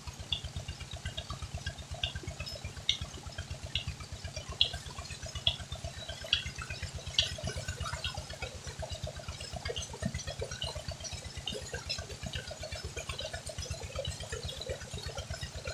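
Tubewell water gushing out of the outlet pipe and splashing onto a woven string bed, over the steady rapid chugging of the engine that drives the pump.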